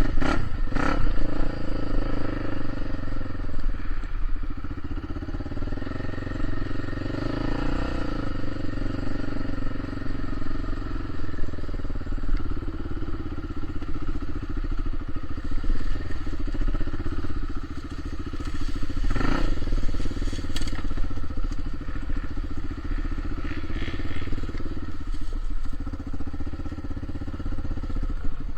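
Motor vehicle engine running steadily under way, its pitch rising and falling a little, with a few knocks and clatters in the second half.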